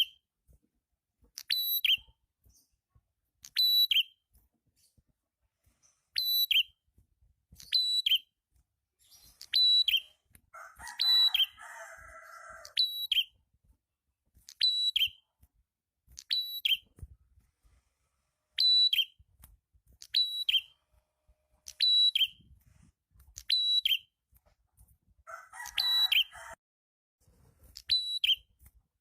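Prenjak kepala merah calling vigorously: a sharp, high call repeated about every one and a half to two seconds. Twice a lower, buzzy chattering joins in, about ten seconds in and again near the end.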